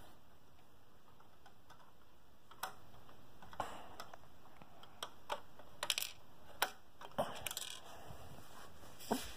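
Faint, irregular clicks and light taps of plastic Lego pieces being handled, starting a few seconds in, with the densest cluster in the middle.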